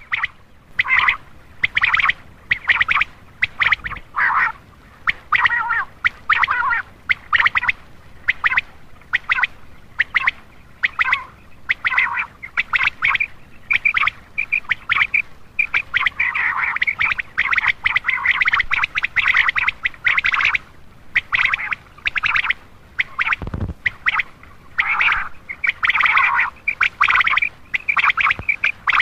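Common quail calling over and over in quick, short, clipped notes with brief gaps between bursts, played as a lure call for drawing in male quail. There is a single low thump about two-thirds of the way through.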